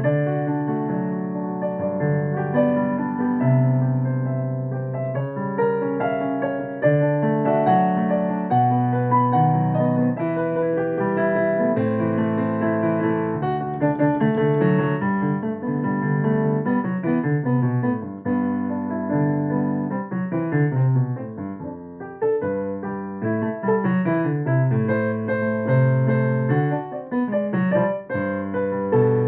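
Solo piano playing an improvised piece of chords and melody, steady throughout.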